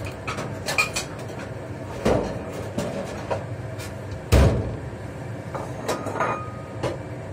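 Kitchen cookware and utensils being gathered and set down: scattered knocks and clatters, the loudest about two and about four seconds in, over the steady noise of a running range hood.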